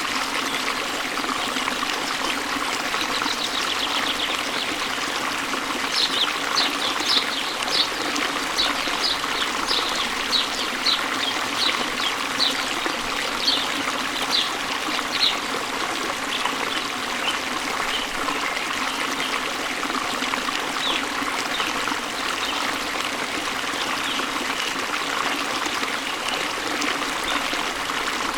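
Waterfall and stream water running steadily. From about six seconds in, a bird gives a series of short high chirps, about one and a half a second, for roughly ten seconds, then fainter and sparser.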